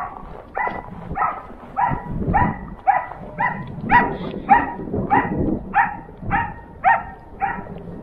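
A dog barking over and over in a steady rhythm, about two short barks a second.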